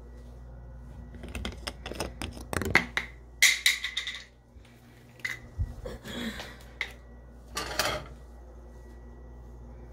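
Clicks, knocks and short rustles of things being handled on a kitchen counter and of the phone being moved, over a steady electrical hum; the handling is loudest around three to four seconds in and dies away near the end, leaving the hum.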